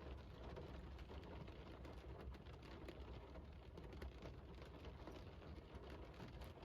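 Rain falling: a faint, steady patter of many small drops hitting a surface, with a low, steady rumble underneath.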